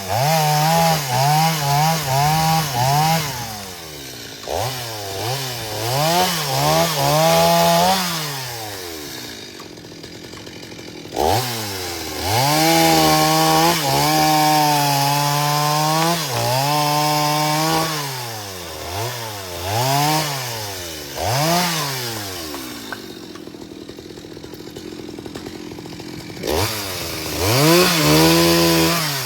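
Petrol chainsaw engine revving up and down repeatedly, held at full throttle for a few seconds at a time and dropping back toward idle in between.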